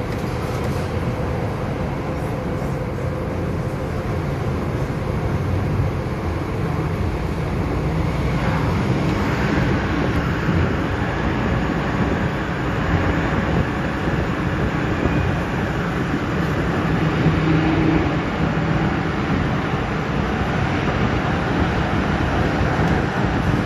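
MTR M-Train electric multiple unit running in a tunnel, heard from inside the passenger car: a steady low rumble of wheels on rail with a wavering motor hum, a little louder after about six seconds.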